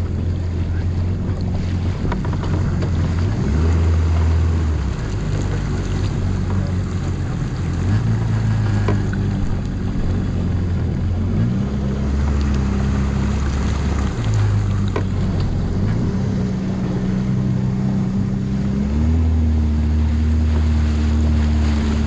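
Yamaha VXR WaveRunner's 1.8-litre four-stroke engine and jet drive running, its pitch stepping up and down several times as the throttle is opened and eased, over wind and water noise.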